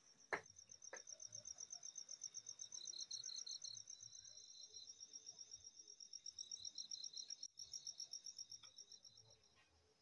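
Crickets chirping at night: a steady, rapid pulsing trill, with a second, lower trill joining in twice for a couple of seconds each.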